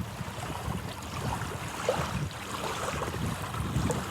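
Beach ambience: wind gusting over the microphone with surf washing in the background.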